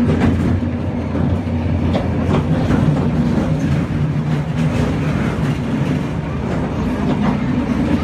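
Historic tram running along street rails, heard from inside the wooden car: a steady low hum from the running gear, with scattered clicks and rattles from the wheels on the track.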